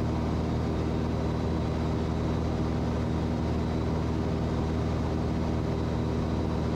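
Cessna 182's piston engine and propeller idling steadily on the landing roll, heard from inside the cabin.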